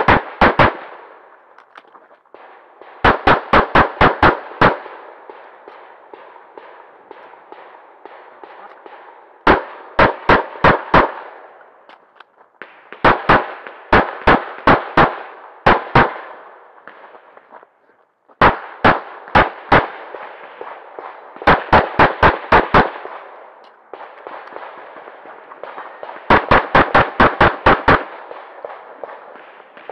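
CZ 75 Tactical Sports Orange pistol in .40 firing major-power loads in quick strings of about five to eight shots, several a second, with pauses of a few seconds between strings.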